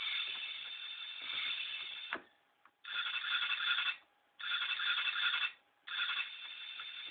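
Motorcycle engine sound effect played back from WAV files by an ATmega128 microcontroller, lo-fi and rattly with a dull top end. It plays steadily, cuts off abruptly about two seconds in, then starts and stops sharply in roughly one-second bursts.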